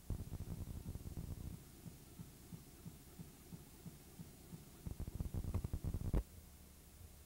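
Low buzzing, throbbing noise from a worn VHS tape whose sound track has dropped out, with no commentary or crowd audible. It comes in rough bursts, strongest from about five seconds in, and cuts off suddenly just after six seconds.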